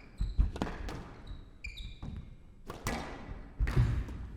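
Squash rally: the ball cracking off rackets and court walls every second or so, with a couple of heavier thuds and short high-pitched squeaks of players' shoes on the court floor.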